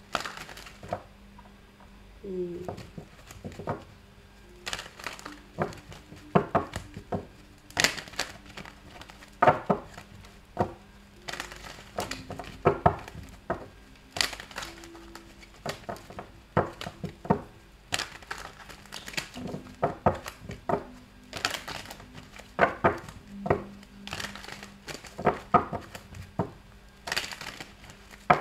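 A deck of tarot cards being shuffled by hand: an irregular run of crisp card slaps and rustles.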